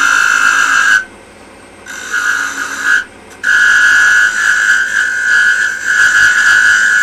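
Hand-held turning tool cutting a small mahogany spindle spinning on a wood lathe, giving a steady high-pitched whine that comes in three stretches, breaking off about a second in and again briefly at about three seconds as the tool leaves the wood.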